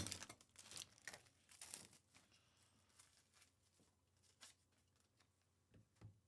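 Faint crinkling of a trading-card pack's plastic wrapper as the cards are slid out, over the first two seconds. After that it is near silence, with a few soft clicks of the cards being thumbed through.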